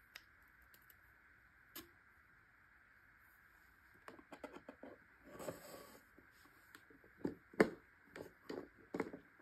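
Small taps and clicks of a plastic tumbler spinner being put together by hand, a thin metal rod knocking against the housing. Nearly quiet at first, then an uneven run of short knocks and clicks from about four seconds in, with a brief rustle and the sharpest click a little before the end.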